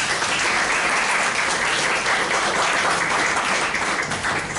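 Audience applauding: many hands clapping in a dense, steady patter that breaks off at the end.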